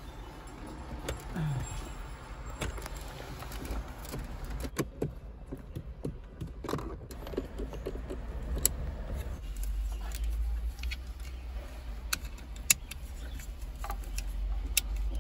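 Scattered sharp clicks and rattles of plastic dashboard trim, wiring connectors and a screwdriver being handled during a car head-unit screen installation, over a steady low rumble.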